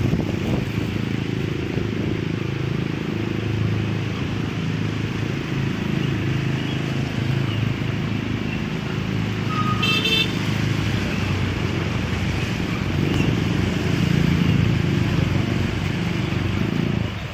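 Motorcycle engine running steadily while riding, over a constant wash of road and wind noise. A horn toots briefly about ten seconds in.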